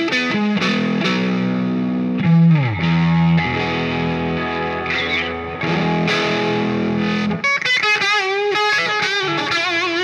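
Stock 2017 Gibson Firebird T electric guitar, with its mini-humbucker pickups, played through an amplifier and a 2x12 speaker cabinet. It plays held notes and chords, with a slide down in pitch about two and a half seconds in. In the last couple of seconds there are single notes with wide vibrato.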